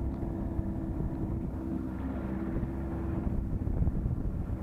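1988 Johnson 28 hp two-stroke outboard running steadily, driving the boat along under way at an even throttle.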